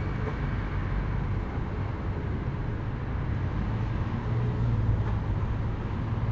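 Steady low hum over an even background of outdoor noise, like distant traffic, with no distinct knocks or bangs.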